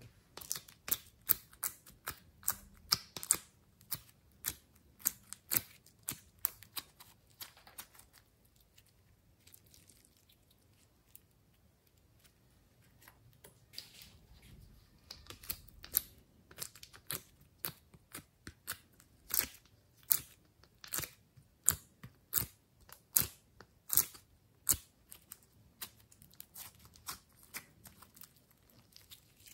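Glossy slime being squeezed and kneaded by hand, making irregular sharp, wet clicks and pops, several a second at times, with a quieter pause about a third of the way in.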